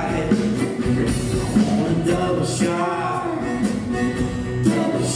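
Live Cajun band playing a song: fiddle, piano accordion, electric bass guitar and acoustic guitar together, with a steady beat.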